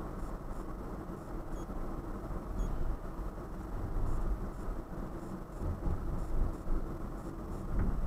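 Car engine and tyre noise heard from inside the cabin: a steady low rumble with small swells as the car moves off and turns.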